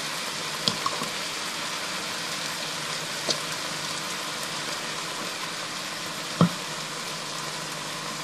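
Chicken strips, onions and capsicum sizzling steadily in a hot skillet as thick satay sauce is poured in from its jar, with three short light knocks along the way.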